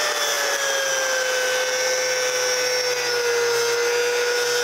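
Corded angle grinder with a fiber sanding disc grinding down a steel weld bead: a steady motor whine over the grinding hiss, dipping slightly in pitch in the first couple of seconds and then holding.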